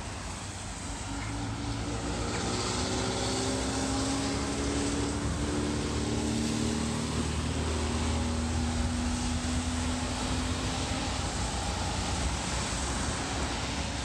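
An engine droning past. Its pitched hum comes in about two seconds in, holds with a slowly shifting pitch for several seconds, and eases off near the end, over a steady hiss.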